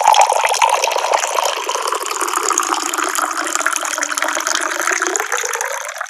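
Tap water pouring in a steady, rushing stream from a faucet.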